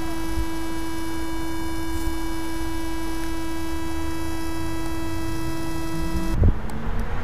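Steady electrical hum from a landed DJI Phantom 2 quadcopter with its propellers stopped: one low tone with fainter higher tones above it. It cuts off suddenly about six seconds in with a short thump.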